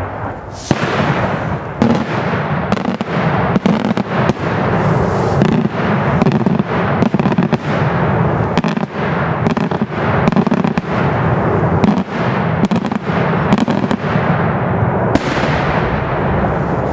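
Daytime aerial fireworks barrage: a rapid, unbroken run of shell bursts and crackling bangs over a continuous low rumble, with a fresh loud burst near the end.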